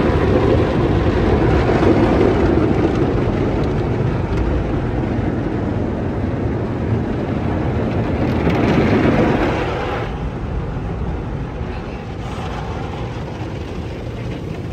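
MacNeil soft-touch tunnel car wash heard from inside the car: cloth wash material scrubbing and water spraying over the body and windshield, a loud, steady wash of noise. About ten seconds in it drops off suddenly to a quieter spray.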